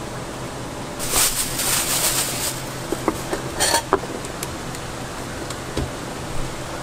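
A bundle of wooden fish-cake skewers being handled: a rustling clatter about a second in, then a few sharp light knocks as the skewers are gathered and knocked on a wooden cutting board. A steady fan hum runs underneath.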